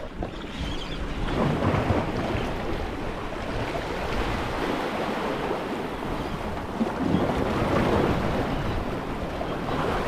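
Sea waves washing in and falling back, with wind buffeting the microphone; the surf swells about two seconds in and again near the end.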